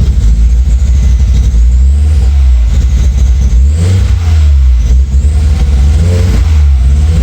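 Rebuilt 1.8T turbocharged four-cylinder engine running unevenly, its pitch rising and falling twice as it is revved: the engine is misfiring.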